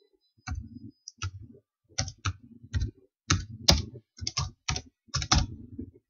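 Typing on a computer keyboard: an uneven run of short keystrokes, about three a second.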